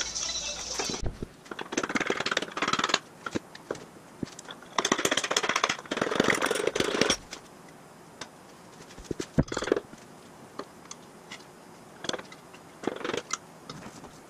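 Tools working on a cast-iron Ford flathead V8 engine block as it is taken apart. There are two bursts of rattling, about one and two seconds long, in the first half, then scattered metal knocks and clanks.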